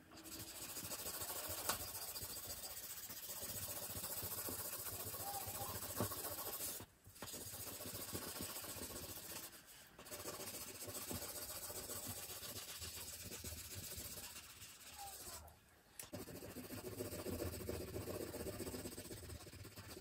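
Wax crayon scribbled back and forth on paper, a steady scratchy hiss that breaks off briefly three times.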